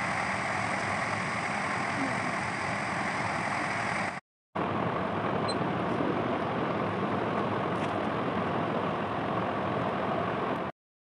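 A steady machine-like hum and hiss, broken off for a moment about four seconds in and stopping shortly before the end.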